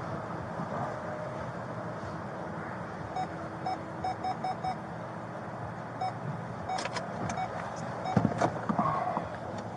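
Steady engine and road noise inside a police car. Around the middle comes a run of short electronic beeps, and near the end a few clicks and knocks.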